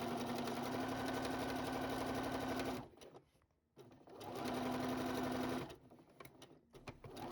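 Sewing machine stitching a seam, running in two spells with a pause of about a second and a half between them, and a few light clicks near the end before it starts again.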